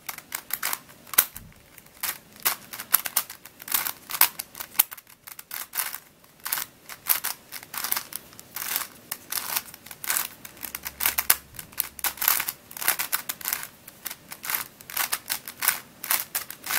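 Plastic twisty puzzle, a Calvin's Octo Star Cube, being turned quickly during a scramble: a fast, irregular run of clicks and clacks as its layers snap round.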